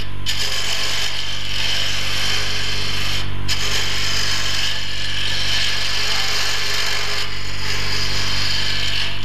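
A carbide-tipped woodturning tool cutting a spinning wood bottle-stopper blank on a Jet lathe: a steady hissing scrape over the lathe motor's hum. The cutting breaks off briefly three times as the tool lifts from the wood.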